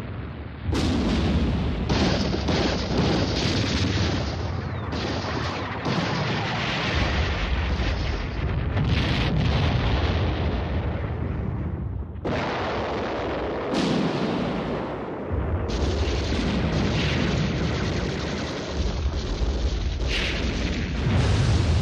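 Continuous battle noise: explosions and artillery fire with deep rumble and gunfire, loud throughout, changing abruptly several times as separate sections are cut together.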